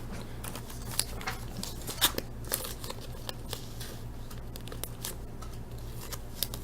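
Hockey trading cards being handled and sorted: scattered light rustles, slides and small clicks, over a steady low hum.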